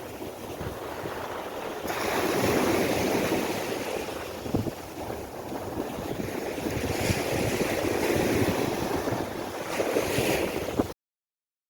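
Sea waves washing onto a sandy beach, swelling twice, with wind buffeting the microphone. The sound cuts off suddenly near the end.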